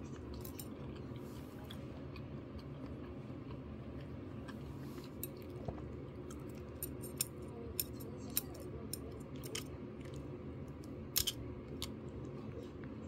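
Metal chopsticks making scattered light clicks and taps against an earthenware ttukbaegi pot as they lift seafood pasta, about a dozen from the middle on, the sharpest a quick double click near the end, over a steady low hum.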